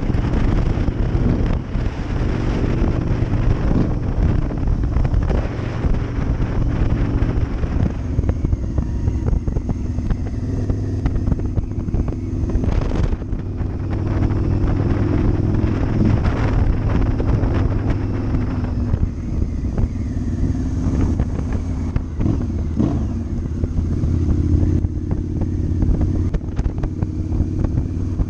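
Cruiser motorcycle engine running under way, its low note stepping up and down a few times as the throttle and gears change, with wind rushing over the microphone.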